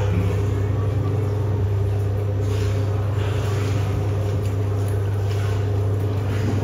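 Steady low mechanical hum with a few faint overtones, running evenly throughout.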